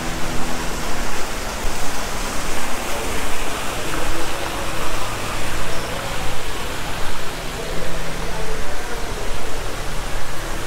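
Row of small fountain jets splashing into a shallow pool: a steady rushing hiss of falling water.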